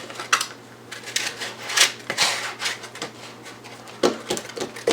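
Sheet of skateboard grip tape being rubbed and scraped on the deck: an irregular run of short, scratchy strokes, with a few sharper clicks near the end.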